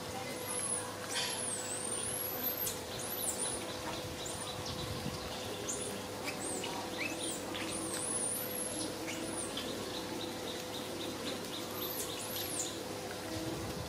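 Small birds chirping and whistling: quick, very high notes that swoop up and down, in scattered short series. A steady hum runs underneath.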